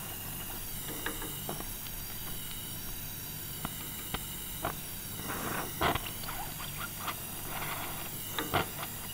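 Gas torch flame hissing steadily on body solder while a wax-lubricated wooden paddle is pressed over the softened solder, with scattered short sizzles and crackles like meat on a grill, the loudest about six seconds in and near the end.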